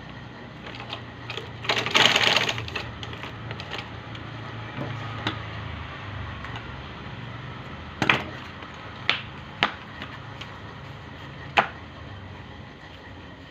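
Sewing machine stitching shoe uppers: a short run of rapid stitching clicks about two seconds in, then scattered clicks and a few sharp single knocks later, over a low steady hum.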